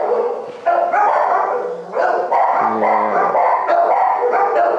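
Shelter dogs barking in their kennels: a near-continuous run of overlapping barks with a few short lulls.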